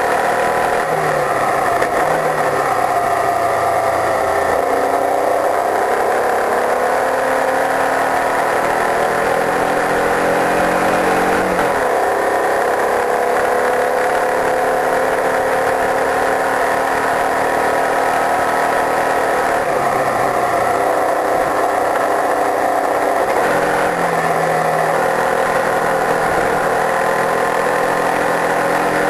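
Open-wheel racing car's engine running at speed on track, its pitch climbing steadily for several seconds at a time. The pitch drops sharply about twelve seconds in and again about twenty seconds in, then climbs again.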